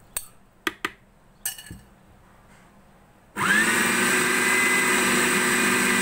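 A few short knocks and clinks, then about three and a half seconds in an electric food chopper's motor starts with a quick rising whine and runs steadily at full speed, grinding beef mince with chopped onion, herbs and green chillies into kofta paste.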